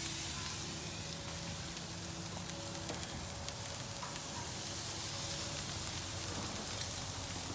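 Teriyaki chicken thighs sizzling steadily on a wood-fired Santa Maria grill, with scattered small pops.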